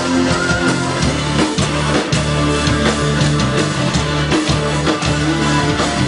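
Loud rock-style music with a steady drum beat and a heavy bass line.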